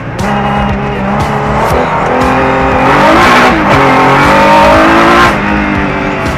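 Rallycross car's engine heard from inside the cockpit, changing down through the gears and then revving up for a couple of seconds before the revs drop sharply near the end. A rush of loose dirt and tyre noise swells about halfway through as the car slides.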